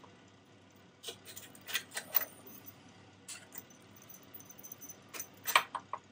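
Small metal parts clinking and tapping as a motorcycle's rear brake master cylinder and its fittings are worked up through the frame by hand. There are scattered sharp clicks, with clusters about a second in and around two seconds, and the loudest clink near the end.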